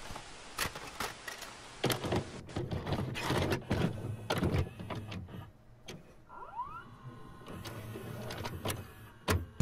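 VCR loading a VHS cassette, used as an intro sound effect: a run of clunks and clicks from the tape mechanism, a short motor whine rising in pitch about six and a half seconds in, and steady hiss, with a couple of louder knocks near the end.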